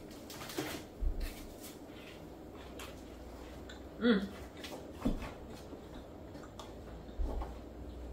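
A person chewing a crispy chocolate-covered wafer bar: scattered soft crunching clicks, with a short closed-mouth 'mm' about four seconds in.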